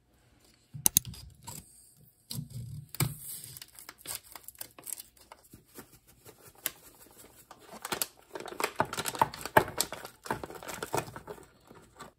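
Handling noises: scattered sharp clicks and knocks with bouts of crinkling, busiest from about eight seconds in.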